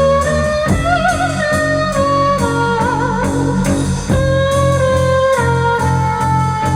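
A live band playing an instrumental passage: a held, wavering melody line over a steady bass line and an even drumbeat.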